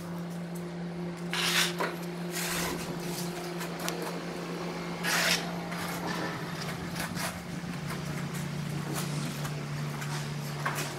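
Notched steel trowel scraping and spreading tile mortar, with louder scraping strokes about one and a half seconds in, again a second later, and around five seconds in, and small clicks between. A steady low hum runs underneath.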